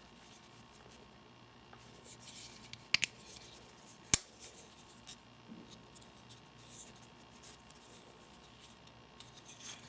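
Folding liner-lock pocket knife being handled: soft rubbing, then sharp metallic clicks, a quick double click about three seconds in and a louder single click about a second later, with a few faint ticks after.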